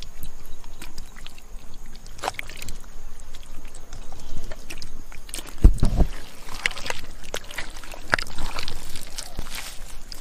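Hands squelching and splashing through wet mud and shallow water, catching small fish and dropping them into a plastic bucket, with irregular wet slaps and clicks and one heavy thump about halfway through.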